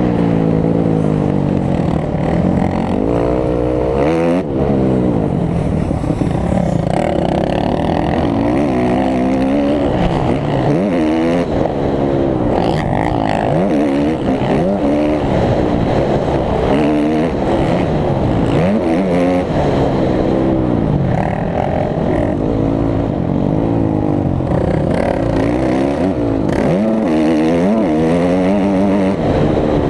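Dirt bike engine heard close from a camera on the bike, revving up and down over and over as it is ridden hard around a motocross track. The pitch climbs as the throttle opens and drops off sharply on shifts and when the throttle is shut, every second or two.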